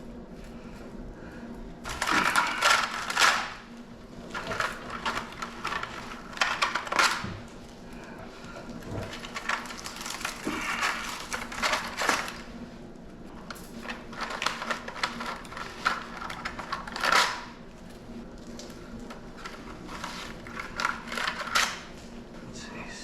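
Copper windings being worked loose and pulled from the transformer coil of a 1952 Forney welder: irregular clusters of metallic clinks, scrapes and rustling, over a steady low hum.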